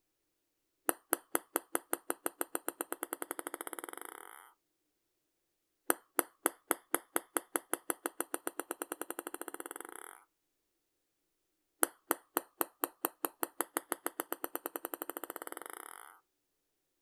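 Ping pong ball dropped three times, each time bouncing on a hard surface: sharp clicks that come quicker and quieter until they run together into a rattle and stop as the ball settles. The drops start about one second in, about six seconds in and about twelve seconds in.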